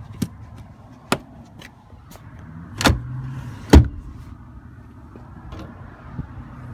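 Plastic clicks and knocks as the rear under-floor storage lids and the folding rear seat cushion of a pickup's crew cab are handled, with two louder thumps about three and four seconds in, over a low steady hum.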